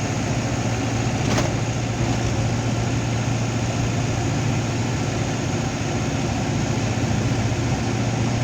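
Small truck's diesel engine running steadily while driving on the road, with one short click about one and a half seconds in.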